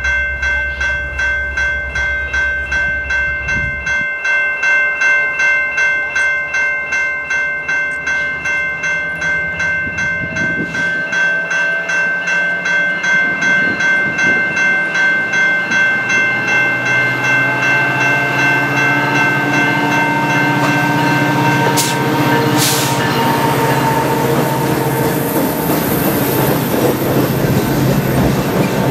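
Diesel locomotive's bell ringing steadily, about two strikes a second, as Canadian Pacific 2246 approaches. The bell stops a bit over two-thirds of the way through, while the locomotive's engine rumble grows louder and the train rolls past.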